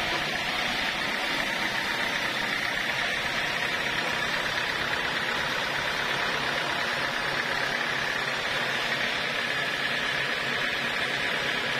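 Horizontal band sawmill running steadily, its blade cutting through an acacia beam with a continuous machine hum and sawing hiss.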